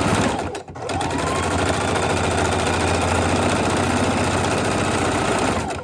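Electric sewing machine running fast, top-stitching through two layers of fabric and batting. It stops briefly just after the start, then speeds back up with a rising motor whine and runs steadily until it stops near the end.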